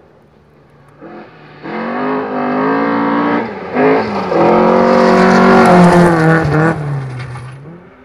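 Rally car on a gravel forest stage at full throttle, its engine climbing in pitch as it approaches, with a brief lift about three and a half seconds in. It passes close at its loudest, with gravel hiss from the tyres, then drops in pitch and fades as it goes away near the end.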